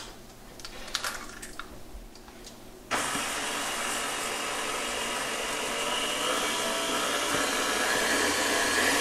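A few light clicks, then about three seconds in a KitchenAid stand mixer's motor starts suddenly and runs steadily, beating eggs into matzo meal.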